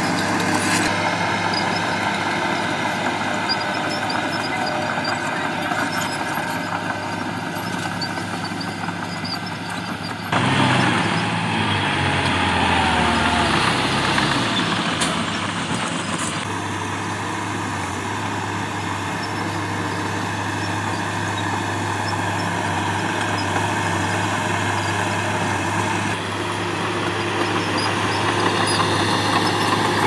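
Heavy diesel machinery running: a Shantui crawler bulldozer's engine holds a steady low drone while it pushes soil. A louder passage in the middle, with a dump truck's diesel engine whose pitch falls steadily, cuts in abruptly at about ten seconds and ends abruptly at about sixteen.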